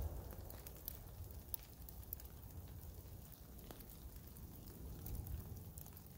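Quiet outdoor background: a low, steady rumble with a few faint, light ticks scattered through it.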